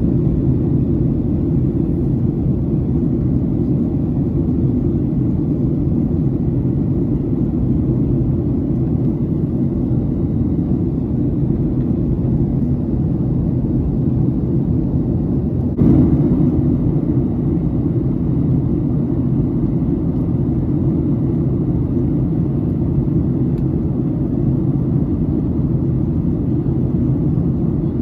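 Steady low drone inside the cabin of a Boeing 737-800, from its CFM56-7B engines and the airflow, with one brief knock about halfway through.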